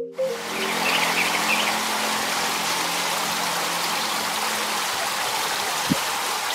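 Water pouring down a stepped stone water feature, a steady splashing rush. At the start the last notes of a gamelan metallophone ring out and fade, and there is one short knock near the end.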